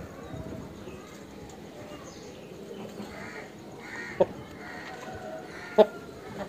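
Several short, harsh bird calls over a steady outdoor background. Two sharp taps stand out, about four and six seconds in.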